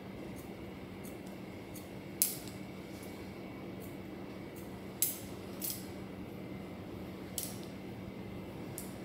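Hairdressing scissors snipping through hair in a few crisp, separate snips, the loudest about two and five seconds in, over a faint steady hum.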